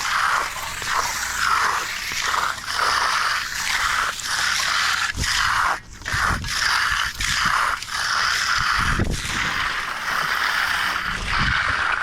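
Hand tool scraping across wet concrete in quick repeated strokes, about one and a half a second, with a few dull thumps among them.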